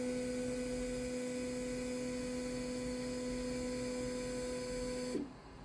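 xTool F1 Ultra laser engraver's motorized lens lift running, a steady electrical hum with a faint hiss, which cuts off suddenly with a slight drop in pitch about five seconds in as the lens reaches the bottom of its travel.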